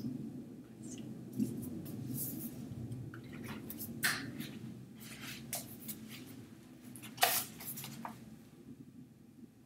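Intermittent rustling and small sharp knocks of paper or packaging being handled, over a low steady hum. The loudest knocks come about four seconds in and again just after seven seconds.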